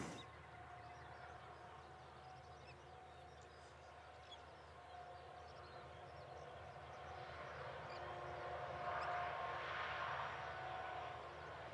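Faint, distant drone of a freight train's diesel-electric locomotives: a low rumble with a steady thin whine, swelling a little about eight seconds in. Faint bird chirps come and go.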